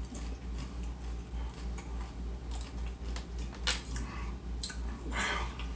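Chewing and crunching of a Paqui One Chip Challenge tortilla chip, heard as scattered sharp crisp clicks, with a short louder hiss near the end. A low pulsing hum runs underneath.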